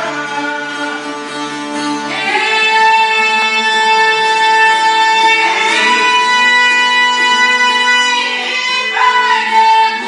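Live Albanian folk music on plucked long-necked string instruments, with long held notes that slide up into pitch three times.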